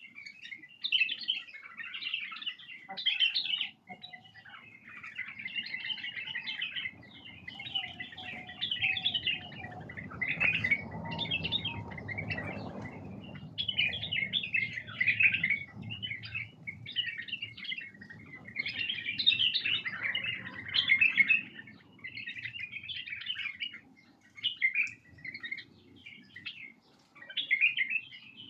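White-eared bulbuls chattering and calling in rapid, overlapping bursts: the excited flock-type calls used to stir up an untrained bulbul. A faint low rumble rises under the calls around the middle.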